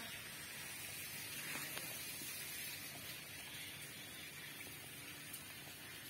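Faint, steady outdoor background hiss with a few light ticks; no distinct sound from the elephant stands out.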